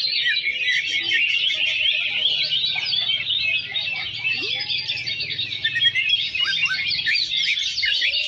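Many caged greater green leafbirds (cucak ijo) singing over one another, a dense, continuous chorus of quick high chirps and trills: the massed song of a songbird-contest field.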